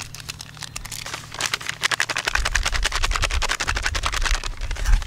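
Seasoning packet being shaken over a bowl of chicken: a few scattered ticks, then a fast run of rattling ticks, about ten a second, for some three seconds, with soft low knocks from handling and a short louder knock near the end.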